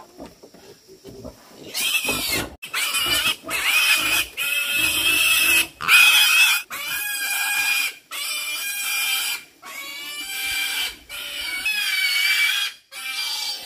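Pig squealing loudly over and over: about ten long, high squeals with short breaks between them, starting about two seconds in. These are a pig's distress squeals.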